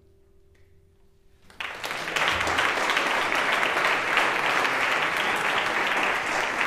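A faint held final note of a small jazz band dies away, then about one and a half seconds in a seated audience breaks into loud applause that goes on steadily.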